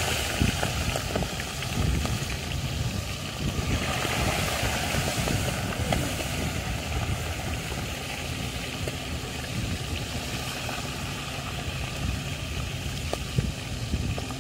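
Portable gas canister stove burning at full flame under a pot of boiling fish: a continuous low rumble with a steady hiss above it.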